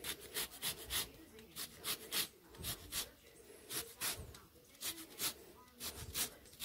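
Lemon rind being grated on a Microplane zester, a run of short scraping strokes at about two or three a second.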